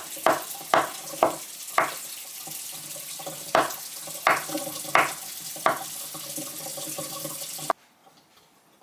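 Kitchen knife cutting beets on a cutting board: about eight sharp chops at an uneven pace over a steady hiss, which cuts off suddenly near the end.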